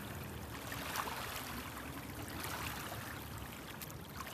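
Small waves lapping steadily at a pebbly shoreline, with a few faint clicks.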